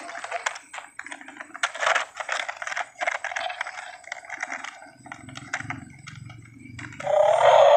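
Battery-operated plastic toy crocodile running: fast, irregular plastic clicking and clattering from its mechanism as it moves over asphalt. A low motor hum comes in about five seconds in. A loud electronic toy sound starts near the end.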